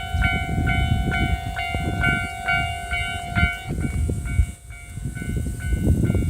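Japanese level-crossing warning bell ringing about twice a second. Under it, the low rumble and wheel clatter of a Marine Liner electric train passing over the crossing.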